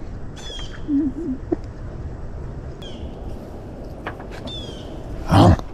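Birds calling with a few short, falling high chirps over a steady low background rumble, with a brief wavering call about a second in and a short louder sound near the end.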